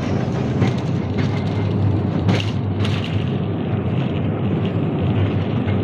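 Small mine train running along its track through a tunnel, heard from aboard an open carriage: a steady low rumble with a few short clicks and knocks, the loudest about two seconds in.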